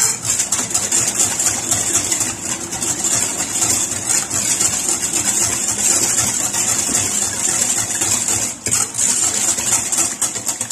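Wire balloon whisk beating eggs, sugar and orange juice by hand in a glass bowl: a fast, continuous rattle and swish of the wires against the glass, with a brief pause a little before the end. The beating is to dissolve the sugar granules.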